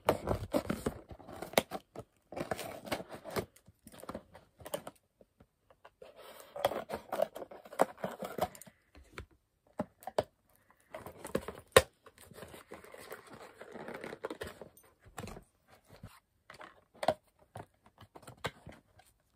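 Packing tape being picked at and torn off a cardboard mailing box, with crinkling and scraping of cardboard in irregular bursts. A single sharp click stands out about twelve seconds in.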